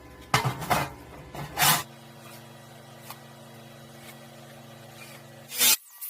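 Metal stove parts scraping and knocking as they are handled and fitted together: short rasping noises about half a second and a second and a half in, and again just before the end. Under them runs a steady low hum.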